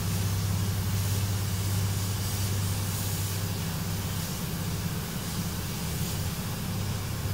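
Gravity-feed spray gun hissing as it sprays metallic paint, the hiss swelling and easing with the gun's passes, over a steady low machine hum.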